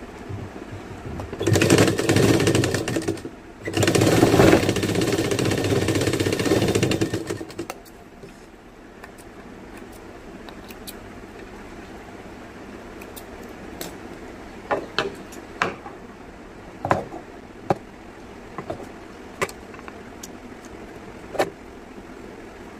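Sewing machine stitching fabric in two runs, the first about a second and a half in and the second from about three and a half to seven and a half seconds in. The rest is quiet apart from scattered sharp clicks as thread snips trim the stitched piece.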